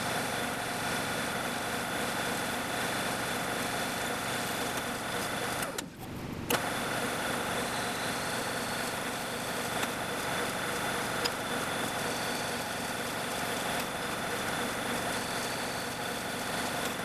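Drill press motor running steadily while its bit drills holes into an aluminum plate. The sound drops out briefly about six seconds in.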